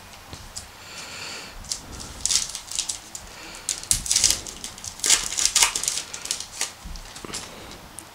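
A trading card pack wrapper being torn open and crinkled by hand: a run of crisp, crackling rustles, loudest in the middle.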